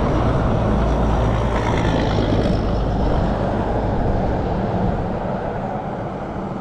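Road traffic driving past: a loud, steady rumble of engines and tyres that eases slightly near the end.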